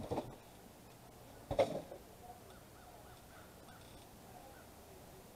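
A crow cawing twice, once at the start and again about a second and a half later, with faint small-bird chirps after.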